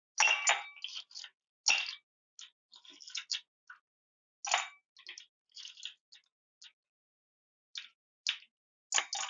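Small metal engine parts, nuts and studs, being handled and set down into a parts dish: about a dozen irregular clicks and clinks, a few with a short metallic ring.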